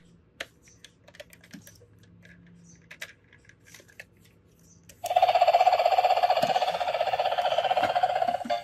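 Light plastic clicks as a battery-operated toy helicopter is handled and switched on; about five seconds in, the toy starts up with a loud electronic ringing sound effect that pulses rapidly and holds steady.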